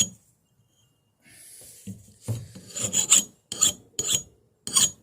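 Hand file scraping along a freshly ground metal blade edge to take off the grinding burrs: quiet for about the first second, then a run of strokes about two a second.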